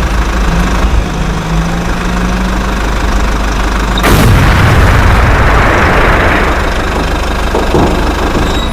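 Steady engine-like drone, then about four seconds in a sudden loud burst of noise that dies away over two to three seconds.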